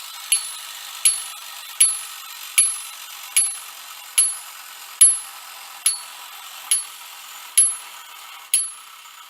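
Marx wind-up Commodore Vanderbilt toy locomotive running on its clockwork motor: a steady whir with a sharp metallic click about once a second. The clicks slowly spread out as the spring runs down and the train slows.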